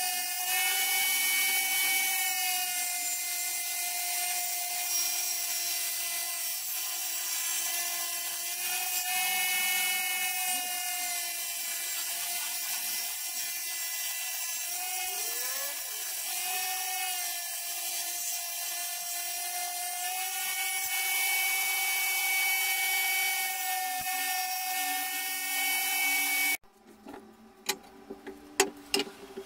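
A power saw mounted under a table runs with a steady high whine, its pitch dipping now and then as a wooden strip is fed through the blade. The whine cuts off abruptly near the end, followed by a few sharp knocks of wood being handled.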